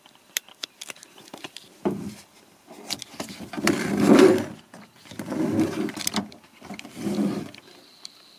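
Handheld camera being handled and repositioned inside a truck cab: a run of sharp clicks and knocks with several rubbing, rustling bursts against the microphone.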